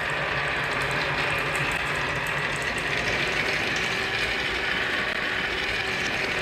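Many marbles rolling and clattering along wooden marble-run tracks, a continuous dense rattle.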